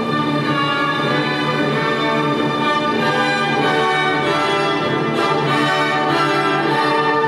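Orchestral music with long held chords, the symphonic accompaniment to a musical fountain show.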